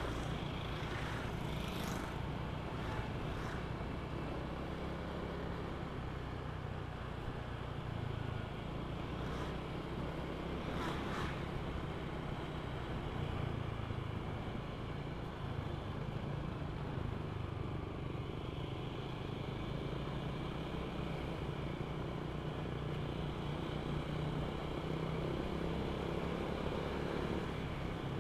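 Honda Vario 125 scooter's single-cylinder four-stroke engine running steadily under way, with tyre and wind noise on the microphone.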